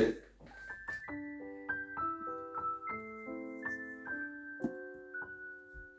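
Solo piano music: a gentle melody of held notes, starting about a second in.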